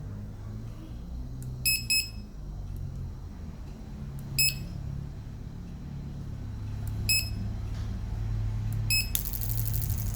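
Short electronic beeps from a fuel-injector cleaning machine, five in all, the first two close together, over a low steady hum. Near the end a fast, buzzing rattle starts up.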